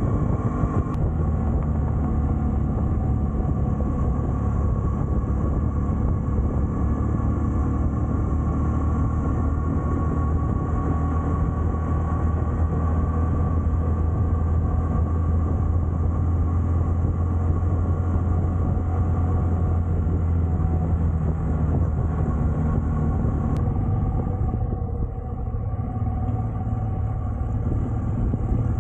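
Motorcycle engine running at a steady speed while riding, with a constant low hum and road noise. The level dips slightly about 25 seconds in.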